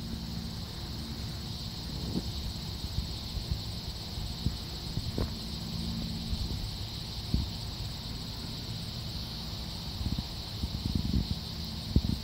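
A steady high-pitched insect drone, such as crickets or cicadas, under low rumbling noise with a few short knocks that grow busier near the end.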